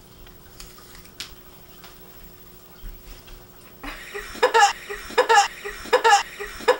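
A woman breaks into laughter about four seconds in, in about four loud bursts roughly three-quarters of a second apart, each falling in pitch, after a few quiet seconds with faint clicks.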